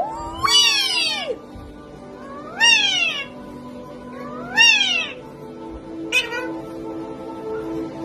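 A parrot calling a drawn-out 'weeee' three times, each call rising and then falling in pitch, with a short call about six seconds in.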